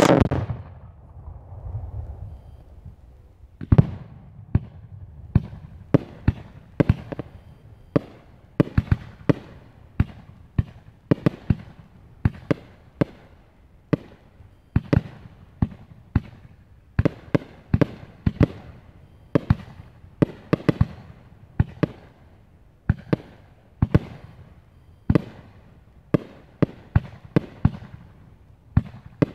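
Aerial fireworks bursting overhead: one loud boom at the start with a long rumbling tail, then from about four seconds in a steady string of sharp bangs, one or two a second.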